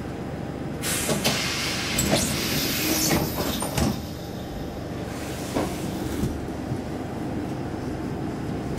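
Sliding doors of a Saltsjöbanan C10/C11 railcar closing: a rush of hissing air with several thuds starting about a second in, then a second, shorter hiss. Under it runs the railcar's steady low hum.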